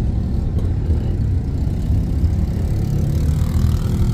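Car engine and road noise, a steady low rumble.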